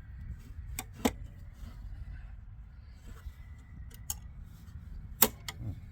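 Scattered sharp metallic clicks and clinks from hand tools and parts of a large circuit breaker being worked apart, the loudest one about five seconds in, over a steady low background rumble.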